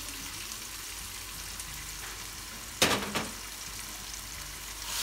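Ground chilli and garlic paste frying in hot oil in a wok: a steady light sizzle. One sharp knock about three seconds in, and the sizzle grows louder near the end.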